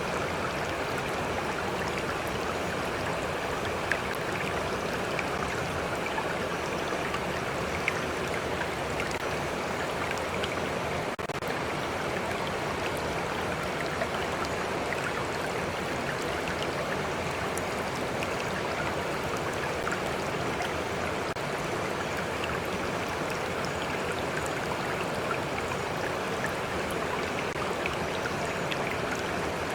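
A stream flowing steadily, with water lapping close by and small drips and plinks scattered through it.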